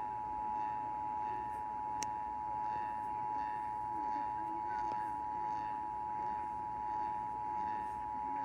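Emergency Alert System attention signal broadcast over AM radio: two tones of about 853 and 960 Hz sounding together as one steady, unbroken alert tone. It is the alert tone of a Required Monthly Test.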